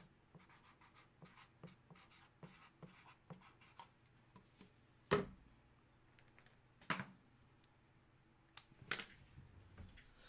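Light tapping and scratching of hands working at a desk, a few small ticks a second, with two louder knocks about five and seven seconds in.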